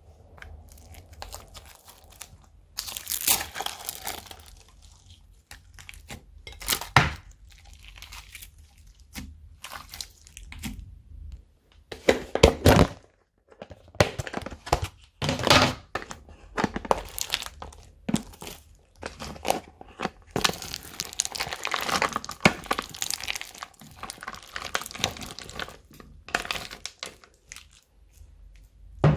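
Slime being mixed and worked by hand, with irregular clicks, pops and squishing noises coming in uneven bursts.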